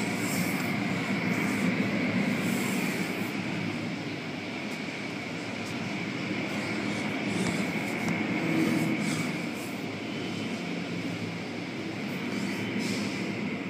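Automatic car wash machinery and water spray heard from inside the car: a steady drone with a high whine, and several swishes as cloth brushes pass over the car.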